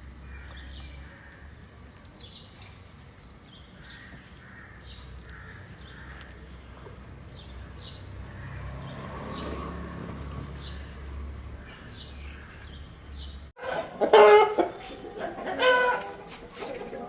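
Aseel chickens chirping and clucking: short high chirps about once a second over a low steady hum, then, after a sudden jump near the end, much louder clucking and calls.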